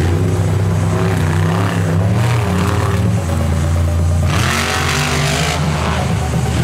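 Stunt-show vehicle engines revving hard, with a louder surge about four seconds in that lasts about a second.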